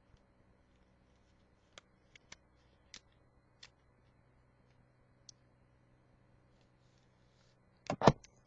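Scattered small clicks and ticks of a folded paper wallet being handled and opened, over a faint steady hum. Near the end come two loud knocks close to the microphone as a hand moves against it.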